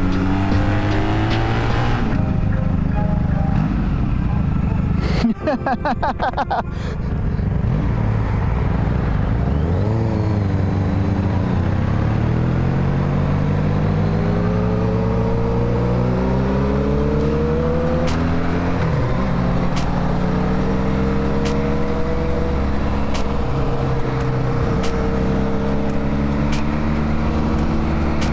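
Honda Magna V4 cruiser motorcycle riding at speed, heard from the rider's seat with wind noise. The engine note climbs in pitch several times as it pulls through the gears, with a brief stuttering break about five seconds in, then holds steadier.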